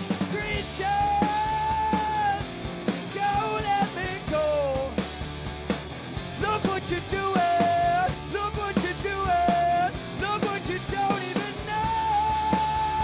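Rock band playing live: electric guitar, bass guitar and drum kit, with a man singing lead and holding several long notes.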